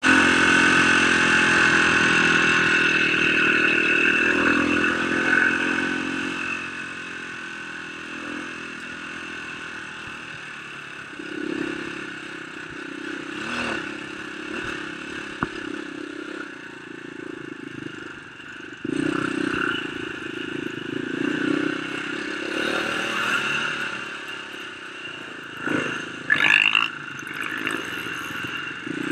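Dirt bike engine running under way on a rough dirt trail, its note rising and falling with the throttle, loudest in the first few seconds. The sound changes suddenly about two-thirds of the way through, and a brief sharp rev rises near the end.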